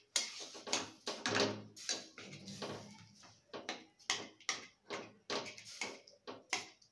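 Steel spatula scraping and knocking against a stainless-steel kadai in quick, irregular strokes, about two or three a second, as crumbled khoa is stirred in a little hot water to melt it.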